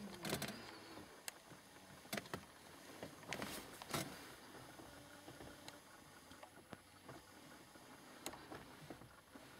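Faint rustling with scattered, irregular clicks and knocks: handling noise from a handheld camera being moved about inside a car cabin.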